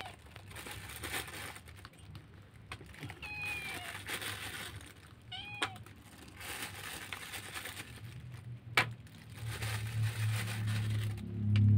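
Stray kittens meowing twice, short high calls about three and a half and five and a half seconds in, over faint crackling and rustling as the cats eat. A sharp click comes near the end, and a low drone grows louder over the last few seconds.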